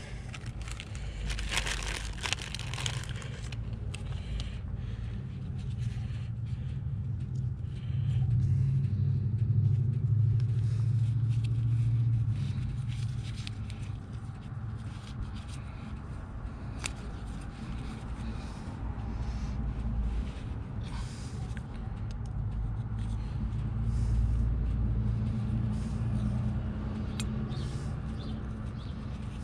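A low, steady mechanical rumble that swells louder a few times, with scattered small scrapes and clicks of hand work on metal parts.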